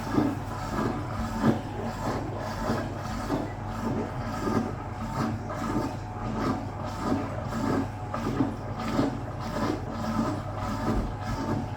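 Hoover Automatic 820 washing machine starting its final spin: a steady motor hum with a regular pulse a little under twice a second.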